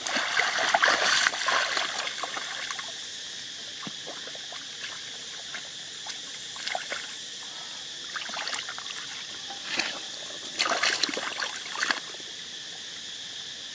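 Hands splashing and sloshing in shallow muddy water while groping through the mud for fish by hand: a string of short, irregular splashes, busiest in the first two seconds and again near the end.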